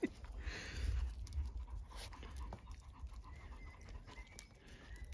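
Puppies playing and tussling together: panting and snuffling with light scuffling, and a couple of faint high squeaks from about three seconds in.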